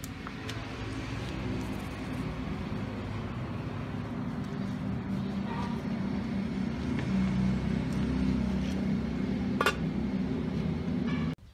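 A steady low rumble and hiss with a few light metal clinks. Near the end comes one sharp metallic clink as an aluminium lid is set on the cooking pot, and then the sound cuts off suddenly.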